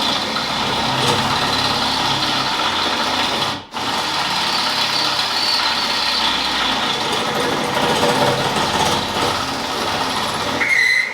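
Cordless drill boring through a steel car frame rail, running continuously with one brief stop about four seconds in. It is on a nearly flat battery, and the owner thinks the drill is dying.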